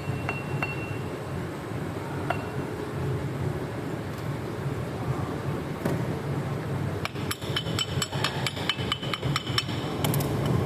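Rapid light metallic taps and clinks with a short ring, bunched together for about three seconds near the end, after a few single clicks, over a steady low hum.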